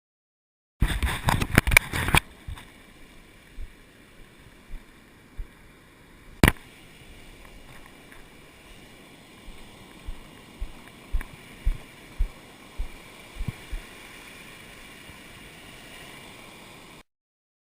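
Water lapping against a kayak hull, with a quick cluster of sharp knocks about a second in, a single loud knock a few seconds later, and a run of soft thumps about half a second apart near the middle.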